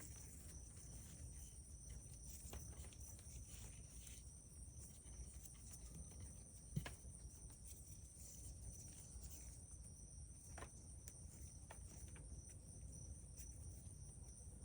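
Near silence: a faint steady high-pitched insect buzz outdoors, with a few soft taps and rustles of hands working plant strands on potting soil, the sharpest about seven seconds in.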